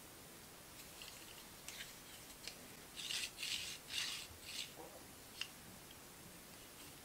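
A digital caliper with a brass slide lock being handled: a few light clicks, then four short scraping rasps close together, and a sharp click near the end.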